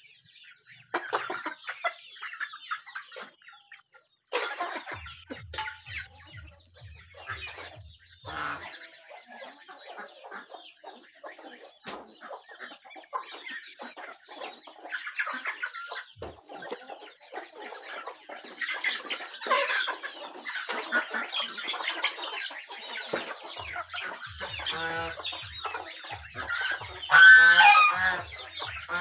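A flock of chickens and young chicks clucking and chirping while they feed. The calls come thick and overlapping through the second half, with one louder call about a second long near the end.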